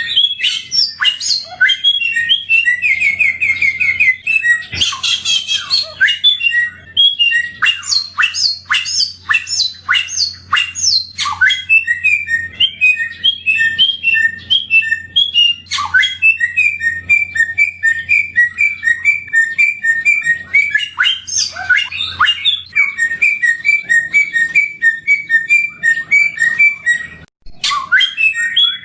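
Samyong songbird singing a long, varied song: sharp falling whistles and chips, then a fast run of quickly repeated chirps. The song breaks off briefly near the end and then resumes.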